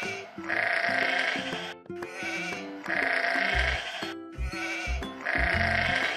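A sheep bleating three times, each bleat about a second long, over background music.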